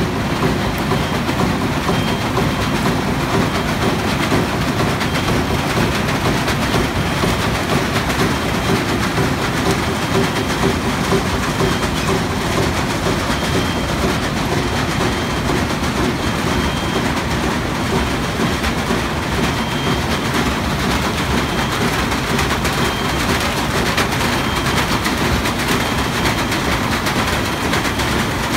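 Automatic vibrating waste stripping machine and counting paper stacker running in line with a corrugated box printing machine, a dense, steady mechanical noise from the vibrating stripper and its belt conveyors as die-cut paperboards pass through. A faint high tone comes and goes.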